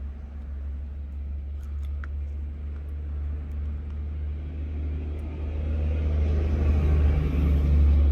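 Steady low rumble that swells louder over the last few seconds.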